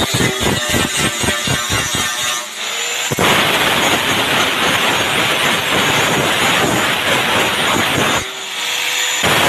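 Electric angle grinder grinding the sheet-steel edges of a cash box. For the first couple of seconds the disc bites in quick, rapid touches, about four or five a second; from about three seconds in it grinds continuously and loudly, easing off briefly near the end.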